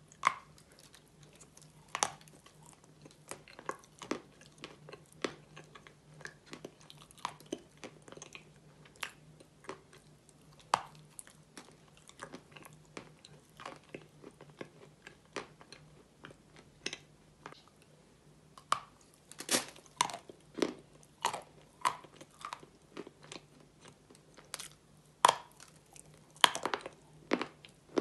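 Close-up biting and chewing of a chunk of Turkistan white clay spread with mascarpone: irregular crisp crunches and mouth clicks, coming thicker and louder in the last third. A faint steady low hum runs underneath.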